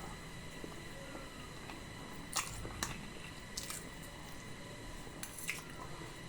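Close-up eating sounds: a person chewing soft, saucy potato and chickpea food, with a few sharp wet mouth clicks and smacks.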